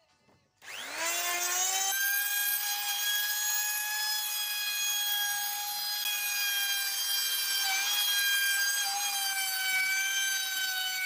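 Handheld electric wood router starting up about half a second in, its whine rising for about a second, then running at a steady high pitch as it cuts along the edge of a wooden frame. The pitch sags briefly now and then as the bit takes load.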